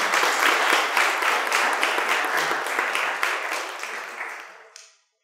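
Audience applauding, many hands clapping together, fading out near the end.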